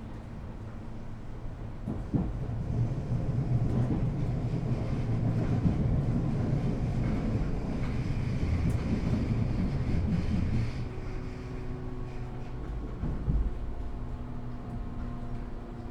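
Interior of an empty train carriage in motion: a low rumble of the wheels running on the track, which swells about two seconds in and eases off past the middle, leaving a quieter hum with steady drive tones.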